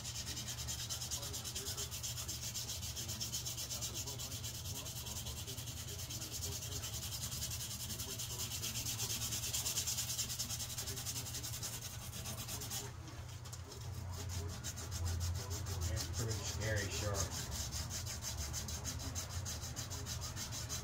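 Electric power sander running steadily: a low motor hum under an abrasive hiss, with the high hiss dropping away about two-thirds of the way through.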